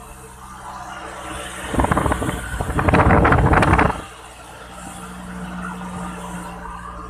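Road vehicle running with a steady low hum. A loud, rough, rapidly pulsing noise starts about two seconds in and cuts off sharply about two seconds later.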